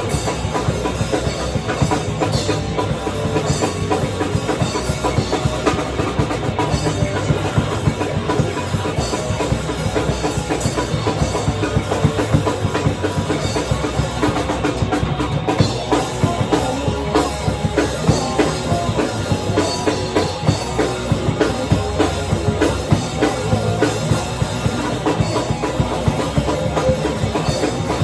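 A live band playing loud rock music, led by a drum kit with rapid, densely packed hits on bass drum and snare.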